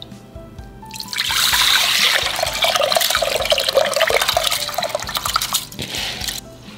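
Water pouring in a steady stream into a rice cooker's inner pot of soaked rice, splashing. It starts about a second in and stops shortly before the end.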